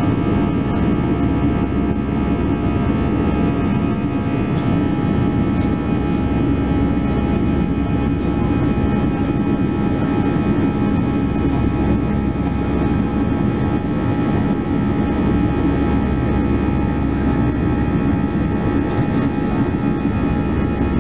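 Cabin noise of an Airbus A320-214 climbing out after takeoff, its CFM56 jet engines under climb power. It is a steady, loud rush with several steady whining tones over it.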